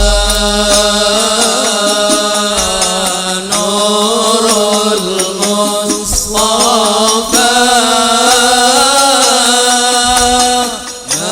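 A male voice singing an Arabic devotional maulid song in long, ornamented held notes, over a steady low tone and light percussion, with a few deep drum thumps.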